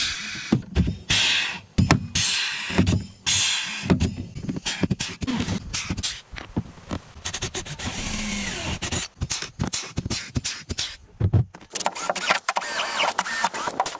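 Pneumatic rivet gun setting aluminum rivets through PVC deck board: short bursts of air hiss, each with a sharp pop, repeated one rivet after another. Near the end a cordless drill runs against the board.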